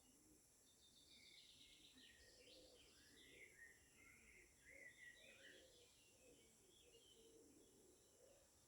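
Faint birdsong: small birds chirping and trilling in quick overlapping phrases, busiest in the first half, over a faint steady high hiss.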